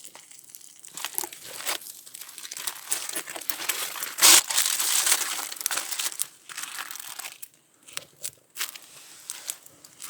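Close crinkly rustling with small clicks and scrapes, loudest a little past four seconds in, then thinning to scattered ticks.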